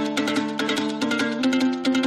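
Instrumental music on plucked strings, with quick repeated notes over a steady low chord that changes to a new chord about one and a half seconds in.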